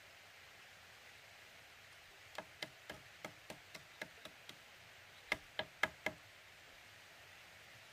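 Knocking on the bamboo poles of a chicken-coop frame, each knock with a short hollow ring: a run of about nine quick, light knocks, about four a second, then, after a short pause, four louder ones.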